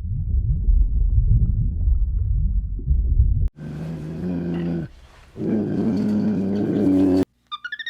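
An animal growling low and rough for about three and a half seconds, then two drawn-out pitched calls, the second longer, each cut off abruptly.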